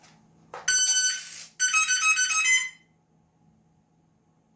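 A click as the battery connector is plugged in, then the E-flite UMX Cessna Citation Longitude's electronics sound their power-up beeps: one long tone, then a quick run of short stepped tones, and another short run near the end. These are the startup and arming tones as the model's receiver initializes.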